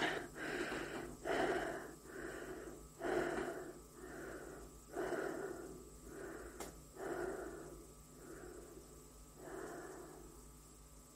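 A person breathing heavily and audibly, about one breath a second, the breaths growing weaker toward the end. A faint steady hum lies underneath, with a single click about two-thirds of the way through.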